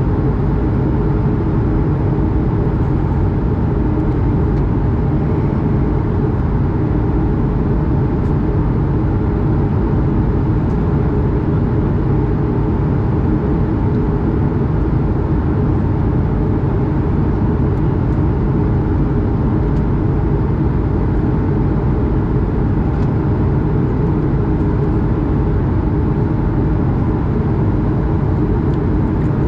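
Steady, deep cabin noise of an Airbus A220 in flight at altitude: its Pratt & Whitney PW1500G geared turbofan engines and the rushing airflow, heard from a window seat beside the engine.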